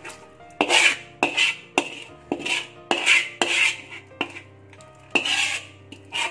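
A perforated metal spatula scraping along a metal pan as prawns and thick gravy are pushed out of it, in a series of short scrapes about every half second.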